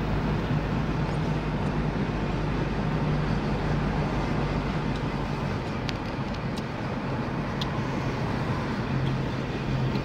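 Engine and tyre noise of a Mahindra SUV heard from inside the cabin while it drives along a road: a steady hum whose engine note drops slightly about halfway through, with a few light ticks.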